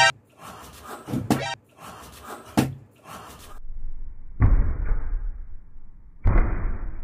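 Hands slapping down hard on a mat-covered tabletop at a plastic tub over a raw egg: two heavy thuds, one about halfway through and one near the end.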